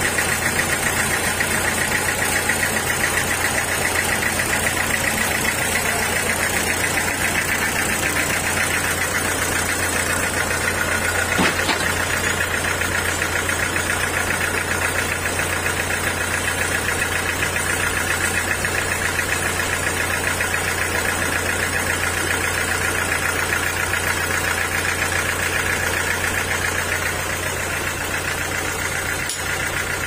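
Vertical band sawmill running, its band blade cutting teak timber: a steady, even mechanical drone with no pause.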